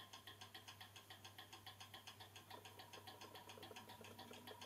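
Faint, fast, even ticking of a mechanical clock movement, about five or six ticks a second, over a low steady hum.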